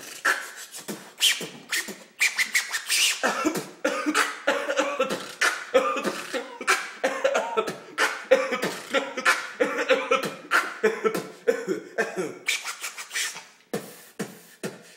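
Solo beatboxing by a young man with a hand cupped over his mouth: a fast, even run of percussive mouth beats, with hummed tones laid over the beat through the middle. The beat breaks off briefly near the end.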